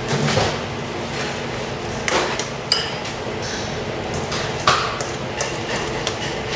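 Stainless steel mixing bowl knocked and scraped as guacamole is emptied out of it: a few sharp knocks, each leaving a brief metallic ring.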